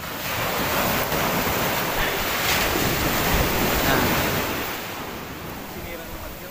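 Sea surf washing on a beach, with wind buffeting the microphone. The rush of the water is loudest over the first four seconds, then eases.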